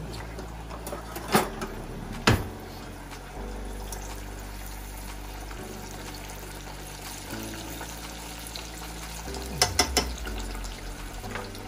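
Breaded fish fillets frying in about half an inch of hot oil in a saucepan: a steady sizzle. Metal tongs click against the pan a few times, early on and twice in quick succession near the end.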